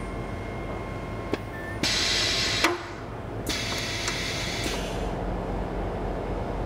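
Gear-finishing machine (gratomate) working a brass gearwheel: a steady machine hum with a click, then a loud hissing burst of about a second ending in a sharp click, and a second, softer hissing burst of about a second.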